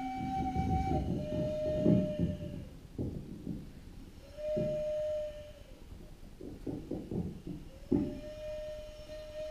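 Improvised music: a flute-like wind instrument holds a few long steady notes in a row, each about a second and a half. Under them are rough low scrubbing strokes that fit a wide paintbrush working on paper.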